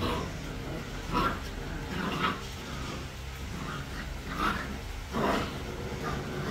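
Young puppies at play giving about five short yips and whines, a second or so apart.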